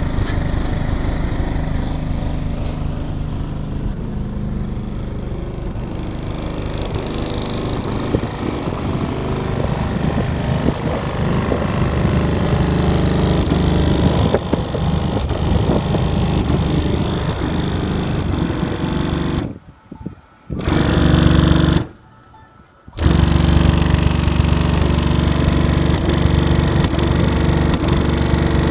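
Bass-heavy rebassed song played loud through a pickup truck's car-audio subwoofers, heard from outside the cab, with the deep low bass strongest. The music cuts out briefly twice about two-thirds of the way through, then comes back at full strength.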